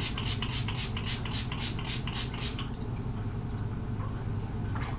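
Pump bottle of Hard Candy Longwear Setting Spray spritzing rapidly, short hissing sprays about four a second, stopping about two and a half seconds in.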